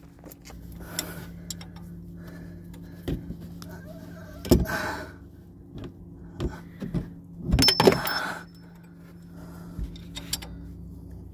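Metal clinks and knocks of a combination wrench being fitted to the crankshaft pulley bolt and handled, loudest about halfway through and again in a short clatter a few seconds later, over a steady low hum.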